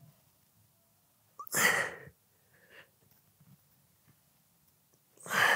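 A man's forceful breaths out during kneeling cable rope crunches: a sharp exhale about one and a half seconds in, a faint one near three seconds, and a longer, louder breath out near the end as the set finishes.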